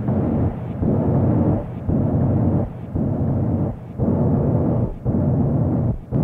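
Outdoor ambience picked up through an apartment window and filtered and effected in real time: a dense, low noise cut into pulses about once a second, with short gaps between them.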